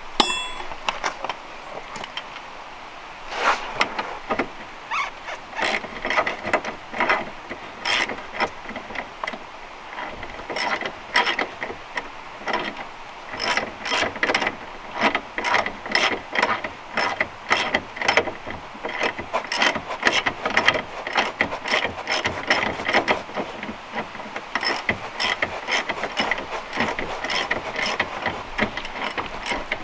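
Hand ratchet clicking in short repeated bursts as it runs nuts and bolts onto a new lower control arm on a 2009 Chevrolet Aveo's front suspension.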